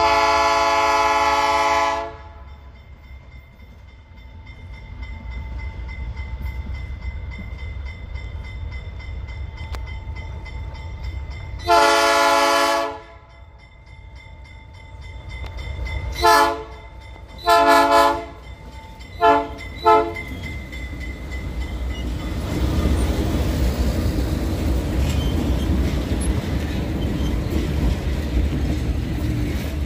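General Electric BB36-7 diesel locomotive sounding its horn as it approaches: a long blast at the start, another long blast about twelve seconds in, then four quick blasts (short, longer, short, short) between about sixteen and twenty seconds. From about twenty-two seconds the locomotives' engines grow louder as they pass close by, and then the freight wagons roll past.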